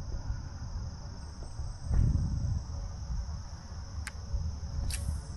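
Insects chirring steadily over a low wind rumble on the microphone, with a dull thump about two seconds in and a couple of sharp clicks near the end.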